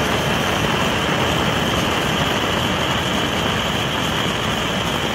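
Handheld gas blowtorch burning with a steady hiss, its flame held on a thick silicone-insulated battery cable.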